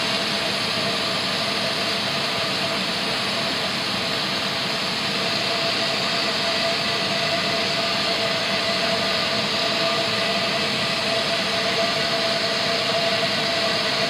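Hand-held propane torch burning with a steady hiss, its flame held into the burner pot of a home-built waste-oil furnace to light diesel starter fuel.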